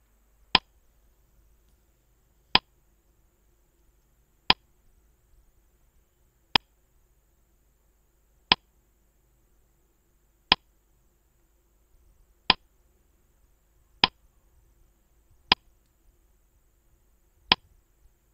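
Countdown-timer clock ticking: a single sharp tick about every two seconds, with near silence between the ticks.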